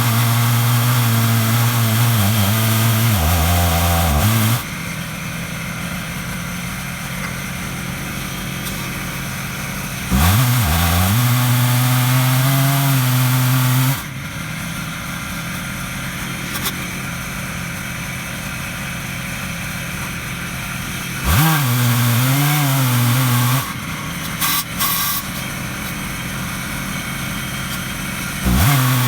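Stihl MS 880 two-stroke chainsaw on an Alaskan mill, rip-cutting a black walnut log with a ripping chain at high revs. Loud stretches of the engine at full throttle alternate, with sudden changes, with quieter, noisier stretches, and twice the pitch rises as the saw revs back up.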